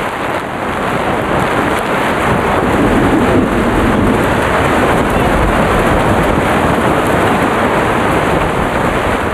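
Heavy monsoon thunderstorm: torrential rain and gusting wind beating on a tent and tarpaulin shelter, a steady loud noise that grows a little louder about three seconds in.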